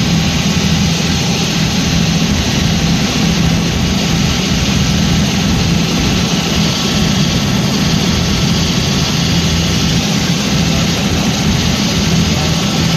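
Robinson R66 helicopter in flight, heard from inside the cabin: its Rolls-Royce RR300 turbine engine and rotors running with a steady, unchanging drone.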